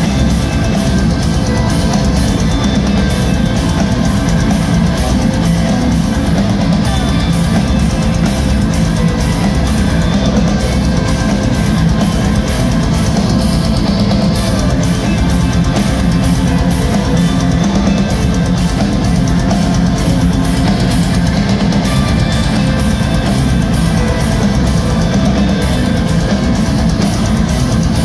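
Metal band playing live: distorted electric guitars over a driving drum kit, loud and continuous with a steady beat.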